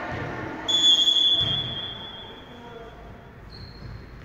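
Referee's whistle: one long steady blast of about a second and a half, then a second, shorter and higher whistle tone near the end, over faint voices in the gym.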